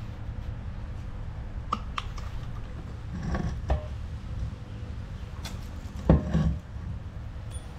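Scattered clicks and knocks of hard parts being handled, over a steady low hum; the loudest knock comes about six seconds in.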